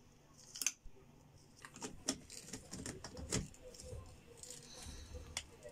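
Ice cubes tipped from a bowl clatter into a plastic personal blender cup, with a sharp clink about half a second in. Then comes a run of plastic clicks and knocks as the blade lid is fitted onto the cup.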